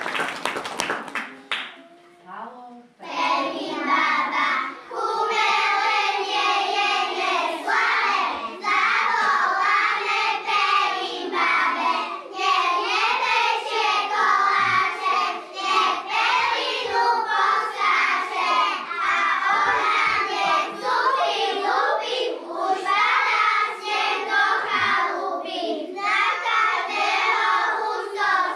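Applause dies away, and about three seconds in a group of young kindergarten children starts singing together in chorus.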